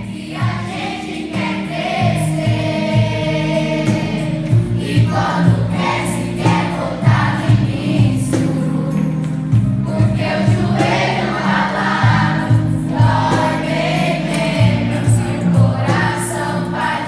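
Choral music: a choir singing with vibrato over instrumental accompaniment with held bass notes and a steady beat.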